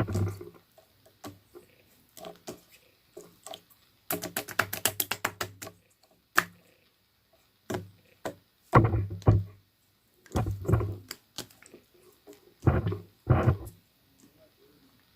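Irregular knocks and thumps, with a quick run of light clicks from about four to nearly six seconds in.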